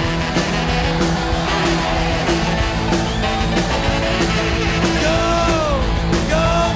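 Loud rock music playing.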